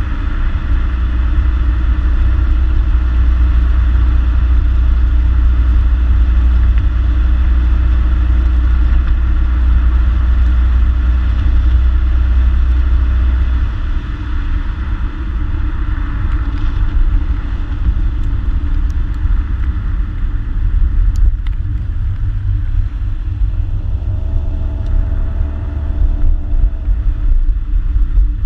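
2014 Ford Mustang's 3.7-litre V6 through its stock exhaust while driving, a steady low drone that shifts and loosens about halfway through. A short pitched tone sounds near the end.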